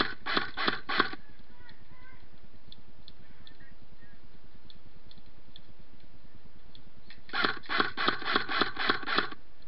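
CYMA CM518 M4 electric airsoft rifle firing single shots in quick succession: four shots in the first second, then a string of about eight shots, roughly four a second, about seven seconds in.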